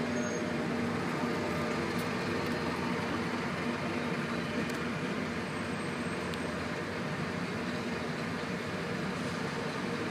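Dense, slow-moving city street traffic: idling and creeping car engines blend into an even drone, over a steady low engine hum.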